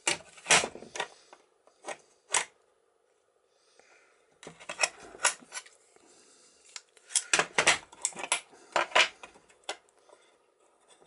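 Metal clicks and clinks of a mortise cabin lock being handled by hand: its steel case and the follower parts knocking and rubbing together in several short bursts, with quiet gaps between them.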